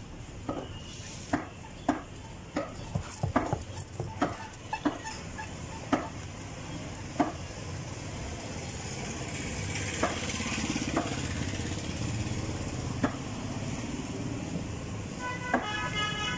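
Sharp, irregular knocks and taps of knife and board work while a large yellowfin tuna is butchered, frequent at first and then sparse, over a steady hum of street traffic.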